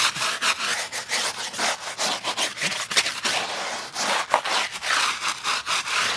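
Stiff tire brush scrubbing the wet, muddy rubber sidewall of an off-road tire in quick back-and-forth strokes, several a second.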